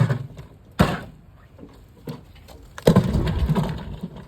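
A mini fridge being smashed: one sharp blow just under a second in, then a burst of crunching, breaking impacts about three seconds in.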